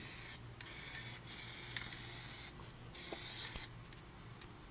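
Aerosol can of black Plasti Dip rubber coating spraying in a few hissing bursts with short breaks between them, dying away near the end.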